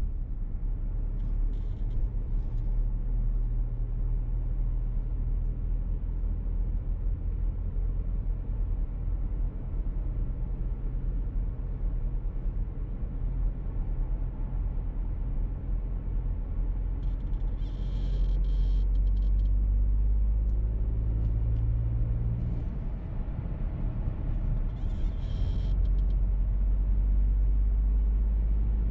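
Steady low rumble of engine and road noise inside the cabin of a moving VW T-Roc petrol car. It grows louder about two-thirds of the way in and again near the end, with a few brief higher-pitched noises now and then.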